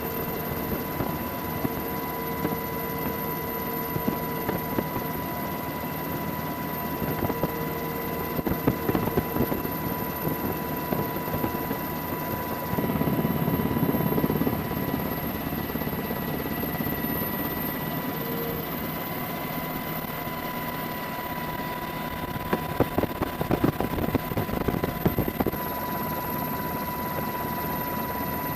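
Steady helicopter noise: the rapid beat of the rotor blades with a constant whine running over it, swelling a little about halfway through.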